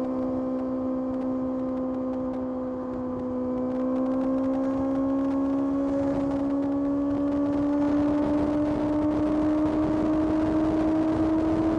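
Kawasaki ZX-6R's inline-four engine running at high revs under steady throttle, its pitch climbing slowly and evenly as the bike pulls in one gear; a little louder from about four seconds in.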